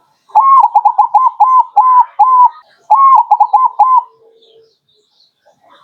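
Zebra dove (perkutut) singing its cooing song. A quick run of short, clear coos is followed by a brief pause and a second quick run, and the song ends about four seconds in.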